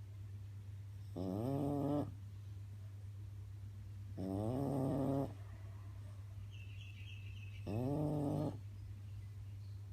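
French bulldog snoring: three snores about three seconds apart, each a pitched rasp that rises at the start and then holds for about a second. A steady low hum sounds underneath.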